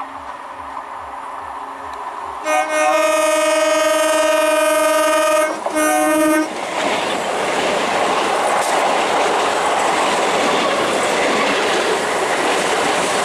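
Electric multiple unit (EMU) local train approaching, louder over the first couple of seconds. It sounds its horn in one long blast of about three seconds, then a short second blast, followed by the steady rush of the train running past.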